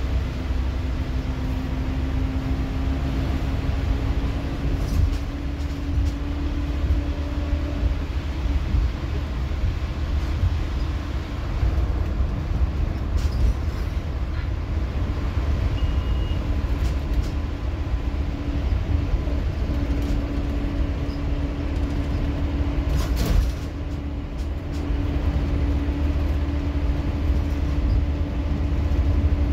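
Scania K230UB Omnilink bus's rear-mounted diesel engine and driveline heard from inside the rear of the cabin: a heavy low rumble with a whine that climbs in pitch over the first several seconds as the bus pulls away, then holds steady from about 20 seconds in. A sharp click about 23 seconds in, followed by a brief drop in the engine sound.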